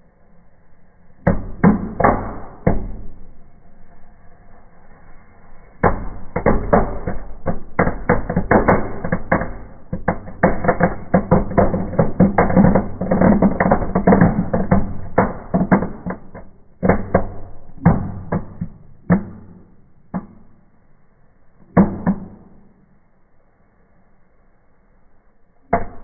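Kaminfeuerwerk fireplace fireworks ('Knallbonbon') going off in a burning fire: rapid, sharp crackles and bangs. A short burst comes about a second in, then a dense crackling run through the middle, then scattered bursts that thin out toward the end.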